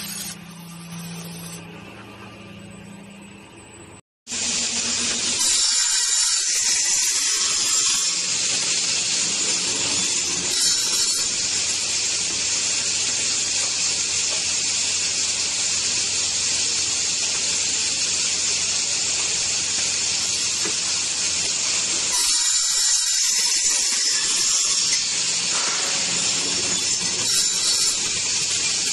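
Wood polishing machine sanding a wood surface: a loud, steady abrasive hiss that starts suddenly about four seconds in, after a quieter machine hum.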